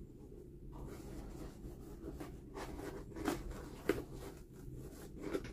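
Faint rubbing and light ticking of fingers handling a leather Air Jordan 1 Low sneaker and its laces, over a low steady hum; one sharper tick about four seconds in.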